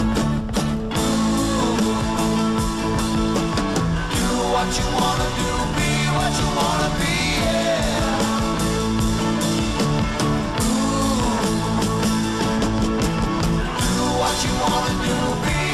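Rock song with guitar and a steady beat, with a voice singing at times.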